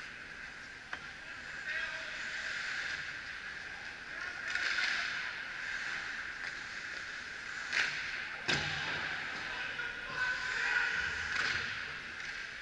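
Ice skate blades scraping and carving on rink ice in hissing swells, with one sharp bang of a hard hit about eight and a half seconds in.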